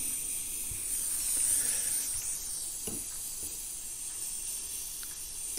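Steady hiss of a Rothenberger 3-in-1 butane gas soldering iron running in hot-air mode, blowing hot air to shrink heat-shrink tubing. The hiss swells slightly about a second in, with a faint tap near three seconds.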